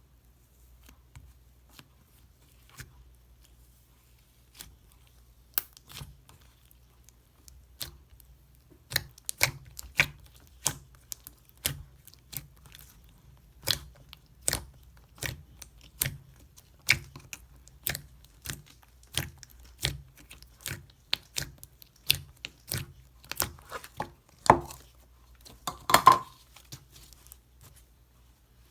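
Slime being played with by hand, making sharp clicking and popping sounds: a few scattered clicks at first, then about two a second, with one longer, louder crackle near the end.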